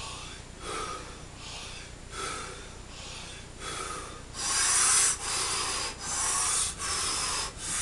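Rapid, forceful Wim Hof-style breathing through the mouth: a rhythmic series of breaths about one every three-quarters of a second, getting much louder about four seconds in.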